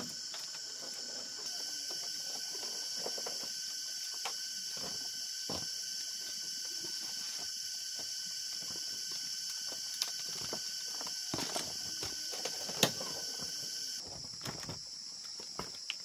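Steady high-pitched insect chorus, with scattered clicks and knocks from a padlock and woven-bamboo door being handled; the sharpest knock comes about three-quarters of the way in.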